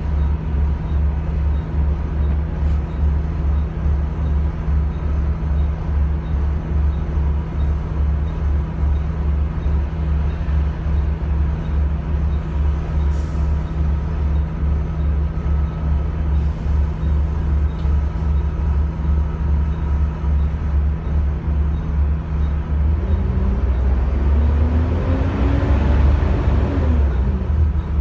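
Volvo B7TL double-decker bus's six-cylinder diesel engine idling with a steady low throb, heard from inside the bus. A short hiss of air comes about halfway through, and near the end the engine revs up and drops back as the bus pulls away.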